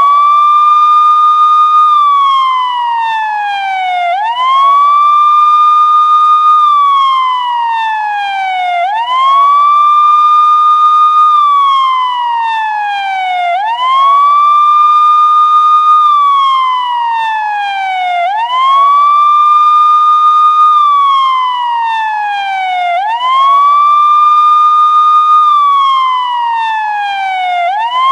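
Police siren sounding a slow wail. Each cycle rises quickly to a high tone, holds it for about two seconds, then slides down over a couple of seconds, repeating about every four and a half seconds.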